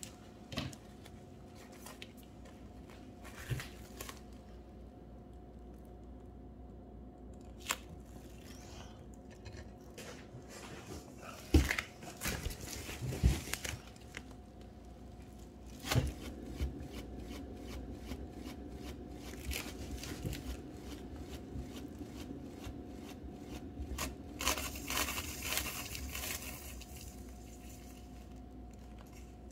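Hand-handling noises from spinning a paint-covered, plastic-wrapped base on a turntable: a few sharp knocks and bumps around the middle and a burst of crinkling plastic rustle near the end, over a faint steady hum.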